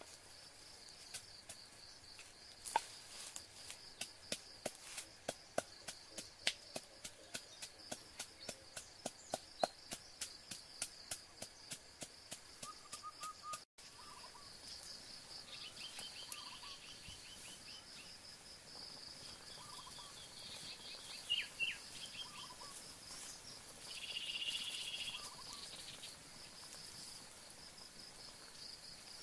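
A wooden pestle pounding in a mortar, about two to three strikes a second, over a steady high insect drone. About halfway through the pounding cuts off, leaving the insect drone with scattered bird chirps.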